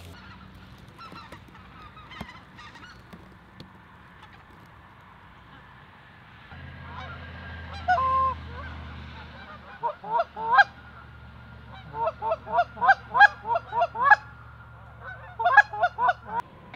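A flock of geese honking in flight overhead. Faint, scattered calls at first, then rapid runs of short rising honks from about ten seconds in, several a second, in bunches.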